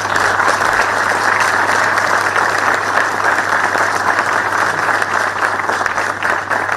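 Audience applauding steadily, a dense continuous clatter of many hands clapping.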